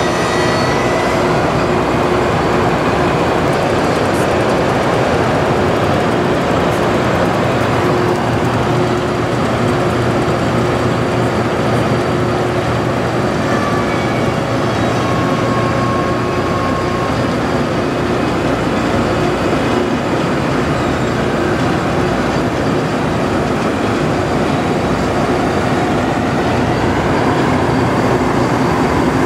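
Loram rail grinder train running along the track: a loud, steady mechanical noise from its machinery and its wheels on the rail, with a steady low hum running through it.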